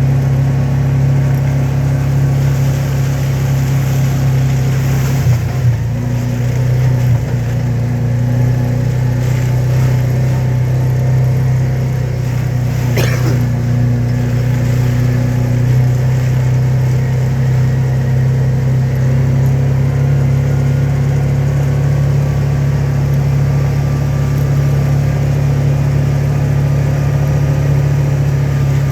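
A small vehicle's engine running steadily at an even speed, with a couple of brief knocks about five seconds in.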